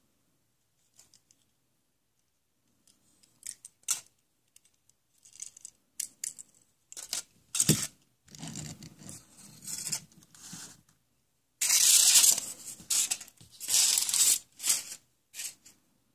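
Foil wrappers crinkling and rustling in bursts as foil-wrapped eggs are handled, with a few sharp clicks and knocks of small toy cars set down on a table. The longest, loudest rustle comes about twelve seconds in.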